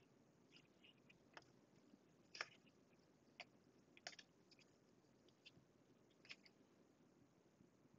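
Faint, irregular clicks and flicks of trading cards being slid off one stack onto another in the hands, with near silence between them.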